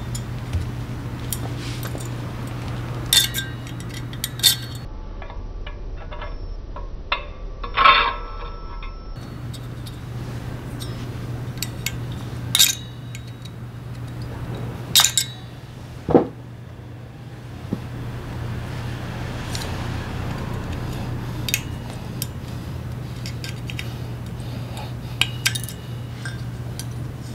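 Sharp metallic clicks and clinks, scattered and irregular, as a thin steel pick pries the small E-clips off the shoe pivot pins of a Honda PCX 125 scooter's centrifugal clutch and the clips come free. A steady low hum runs underneath.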